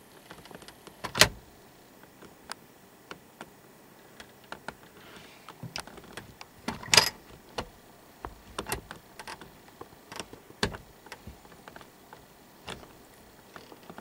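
Scattered sharp clicks and small knocks of gear being handled close to the microphone, with the loudest about a second in and again about seven seconds in, over quiet outdoor air.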